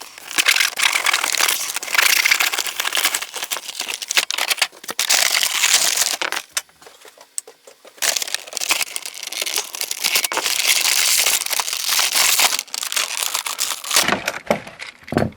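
Packaging of a toy train's box being torn open and crinkled, in two long stretches of crackling and tearing with a short pause between.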